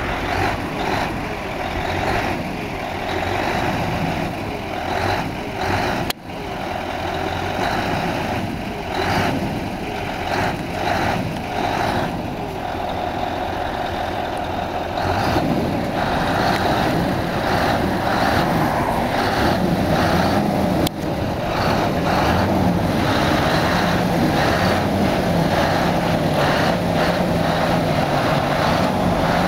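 Scania R620's 16-litre V8 diesel engine running close by: the sound swells and falls unevenly through the first half, then settles into a steady drone from about halfway.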